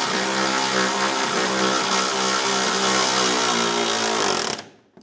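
Power ratchet spinning the front lower control arm bolt down, a steady motor whine that runs evenly and then cuts off shortly before the end.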